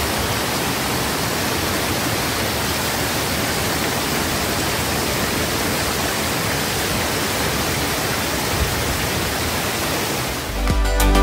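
Tall waterfall in heavy flow: a steady, even rush of falling water. Music comes in near the end.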